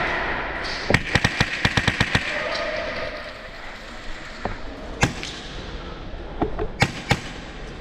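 Airsoft rifle shots: a quick string of about nine sharp cracks a second in, then a few single shots spaced out over the next seconds.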